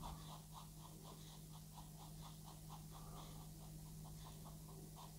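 Faint, rhythmic scratching of a paintbrush working oil paint into canvas, about four short strokes a second.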